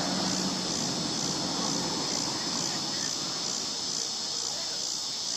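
Steady outdoor insect chorus, a continuous high-pitched buzz that holds even throughout.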